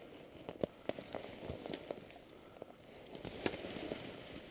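Leaves and brush rustling with irregular sharp twig snaps and cracks as someone pushes through dense undergrowth, the loudest crack a little after three seconds in.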